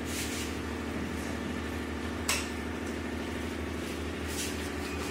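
Bajaj Pulsar NS200's single-cylinder engine idling steadily, with one sharp click about two seconds in.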